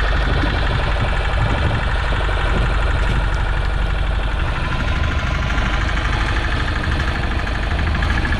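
Small deck-mounted boat engine running steadily, with an even, rapid beat.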